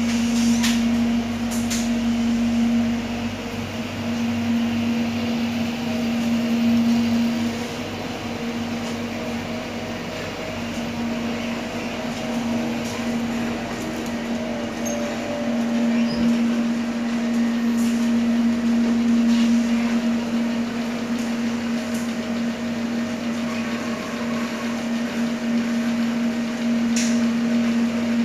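Steady cabin noise inside an electric airport rail-link train carriage: a low hum that swells and fades several times over a bed of running noise, with a few faint clicks.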